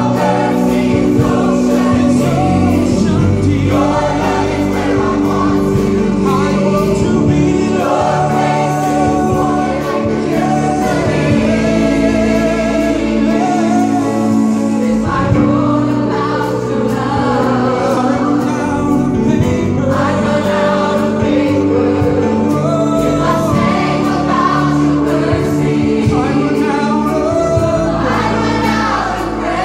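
Church choir singing a gospel worship song, led by a man singing into a microphone, with keyboard accompaniment.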